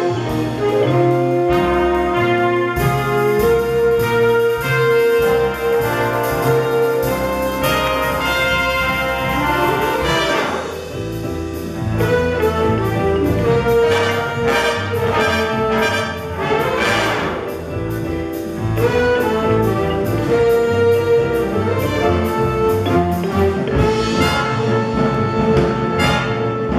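School jazz big band playing live: saxophones and brass holding chords over piano, upright bass and drum kit with cymbals. Twice, about ten seconds in and again some seven seconds later, the sound sweeps through a quick glide in pitch.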